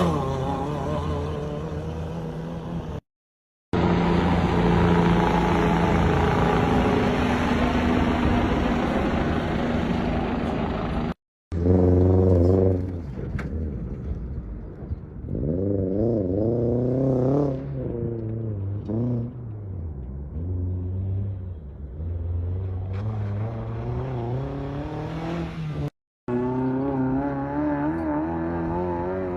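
Rally cars' engines running and revving at a stage start, with the revs rising and falling as cars pull away. The sound drops out briefly three times where clips are cut together.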